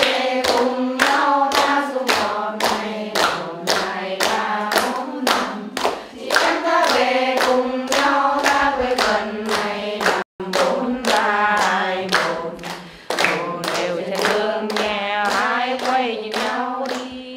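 A group of women singing a song together while clapping their hands to a steady beat, about two to three claps a second. The sound cuts out for an instant about ten seconds in.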